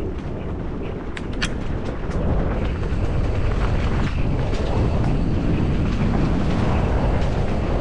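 Wind rumbling on the microphone over the rolling noise of a mountain bike's tyres on a dirt trail. It grows louder about two seconds in, with a few sharp ticks a little after the first second.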